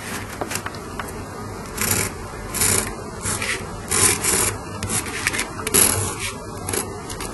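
A light drawing tool scraping across black 150-grit sandpaper in short, uneven strokes, as letters are drawn on the gritty surface.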